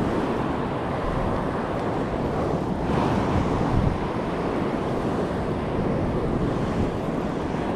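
Surf washing up the beach, with wind buffeting the microphone: a steady rushing noise that swells slightly about three seconds in.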